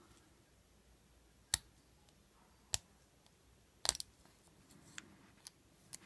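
Sharp metallic clicks from handling an old Yale wafer padlock and its picking tools: three louder clicks a little over a second apart, the third doubled, then a few fainter ticks near the end.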